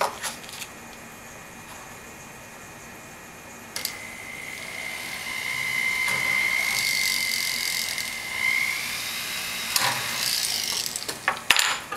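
Flex shaft rotary tool drilling a small hole in thin sheet metal. The motor's steady high whine comes up about four seconds in and holds while the bit cuts, then fades out about nine seconds in. A knock and a few clicks follow near the end.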